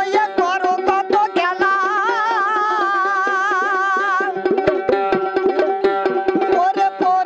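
Bengali Baul folk song: a man's voice singing, holding one long wavering note from about a second and a half in to about four seconds. Under it a plucked dotara lute and a small hand drum keep a quick, even beat.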